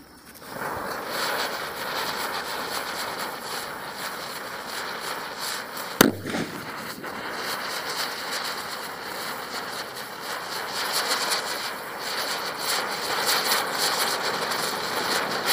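A chakri ground-spinner firework hissing steadily as it spins and throws sparks, with scattered small crackles. About six seconds in comes one sharp, loud bang.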